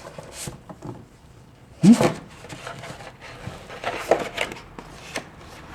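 Scattered soft clicks and knocks, with a brief rising voiced sound, like a short murmur, about two seconds in.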